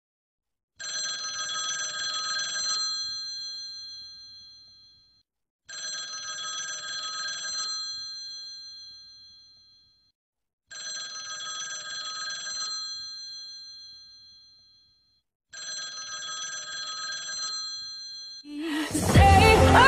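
Smartphone ringtone for an incoming call, ringing four times about five seconds apart. Each ring is a short phrase of several steady, bright tones that fades away.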